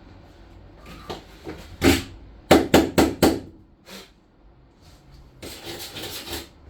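Sharp metal knocks like hammer blows on steel: a few scattered strikes, then four quick loud ones in a row about halfway through, one more, and a looser cluster of knocks near the end.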